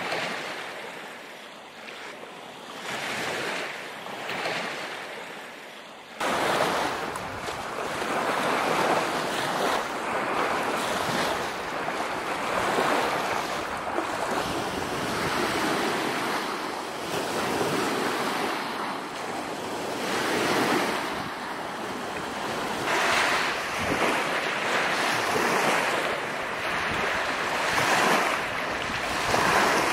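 Lake waves washing onto the shore, swelling and falling every second or two, with wind; the sound jumps louder about six seconds in.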